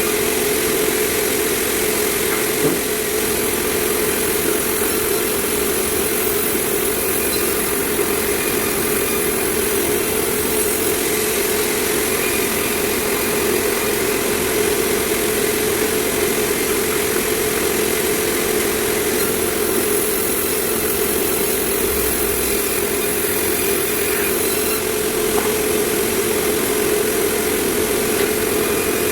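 Sawmill machinery running steadily: a constant mechanical drone with a strong hum, unchanging throughout.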